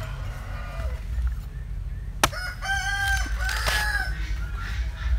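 A rooster crows once, about a second and a half long, a little past the middle. Just before it, a machete chops into a green coconut's husk with a single sharp knock.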